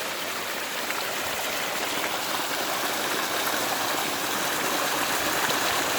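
Creek water running and babbling, a steady rushing noise that grows slightly louder.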